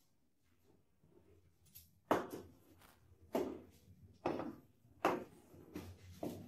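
Footsteps of ankle boots on a tiled floor, a sharp heel knock about every three-quarters of a second, starting about two seconds in. About five or six steps.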